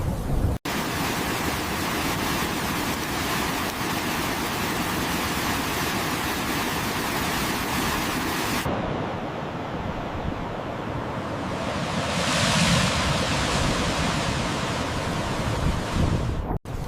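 Steady rushing of water, a loud even wash of noise. It changes character at a cut about half a second in and again about nine seconds in, losing its hiss, and swells briefly around twelve to thirteen seconds.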